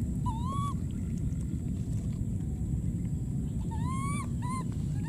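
Baby macaque crying in high, plaintive calls: a short cry just after the start, then a longer rising cry near four seconds and a short one right after it. A steady low rushing noise runs underneath.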